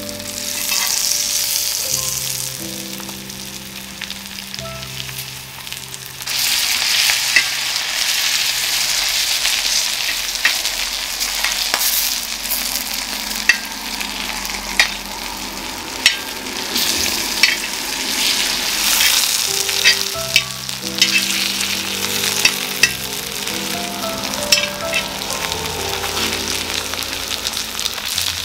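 Coated sweet corn pieces frying in oil on a cast-iron pot-lid griddle (Joseon Griddle): a steady sizzle that gets louder about six seconds in, with scattered sharp pops and clicks.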